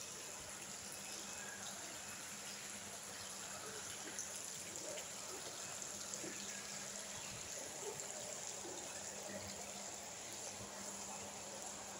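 Steady faint hiss with a low hum underneath: the room tone of a large building lobby, with a few faint ticks.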